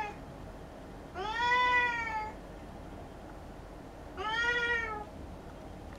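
Domestic cat meowing: two long meows, about a second in and about four seconds in, each rising and then falling in pitch, with the tail of another meow at the very start.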